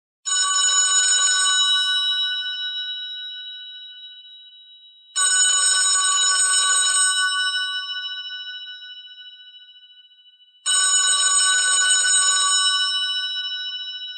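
Telephone bell ringing in three rings about five seconds apart. Each ring is about two seconds of rapid bell ringing, followed by bright tones fading away.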